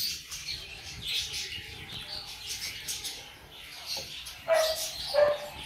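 Close mouth sounds of a man drinking from a glass while eating, with small smacks and swallows. Near the end come a few short, high squeaks, the loudest sounds here.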